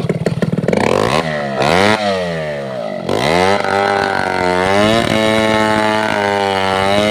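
Two-stroke chainsaw engine idling, then revved up twice, about a second in and again about three seconds in, then held at high speed, steady with slight wavering.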